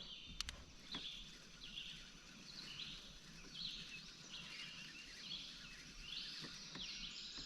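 Quiet outdoor ambience with faint, short, high chirping calls repeating about one and a half times a second, and a few light clicks in the first second.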